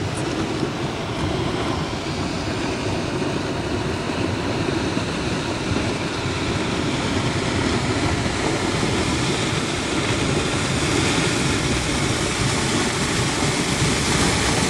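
Steady rushing of a flash-flood torrent of mud and water pouring down the valley, growing a little louder toward the end.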